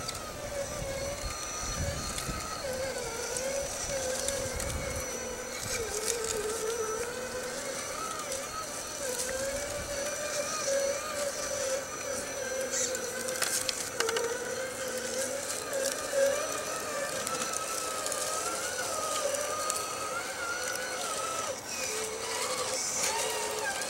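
RC4WD Trail Finder 2 scale rock crawler's electric motor and geared drivetrain whining, the pitch wandering up and down as the throttle is feathered over rocks. A few faint clicks come through, and wind rumbles on the microphone in the first few seconds.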